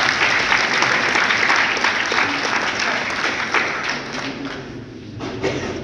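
Theatre audience applauding, the clapping fading away toward the end.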